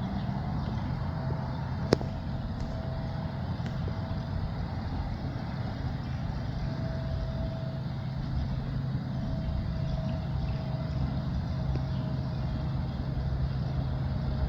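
A steady low engine-like hum with a faint on-and-off whine above it, and one sharp click about two seconds in.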